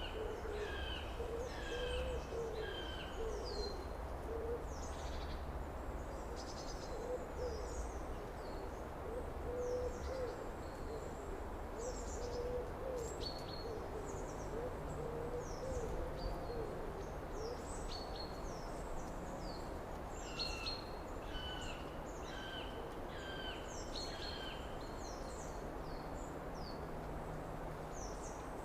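Outdoor summer bird ambience: several songbirds chirp in quick, falling high notes over a low, wavering bird call that repeats through the first two-thirds, with a steady low rumble underneath.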